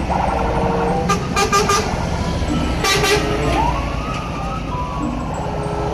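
Scania tanker lorry's diesel engine running as it drives by, a steady low rumble, with a few short hisses in the first half and a brief rising-then-falling whine about halfway through.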